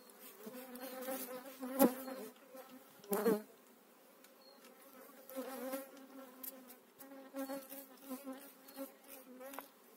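Honeybees buzzing in a steady hum over an open hive. Two short sharp noises cut in about two and three seconds in.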